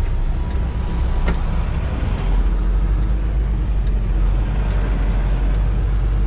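Semi-truck's diesel engine running with a steady low drone that grows stronger about two seconds in as the truck pulls forward. A single click sounds about a second in.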